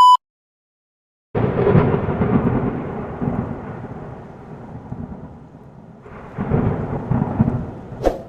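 A short steady beep, then after a second of silence a loud rumble that starts suddenly and fades over several seconds, swelling again about six seconds in, with a sharp click near the end.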